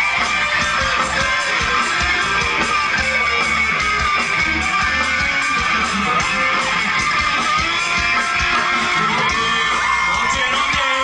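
Live band playing loud guitar-led music over a steady drum beat.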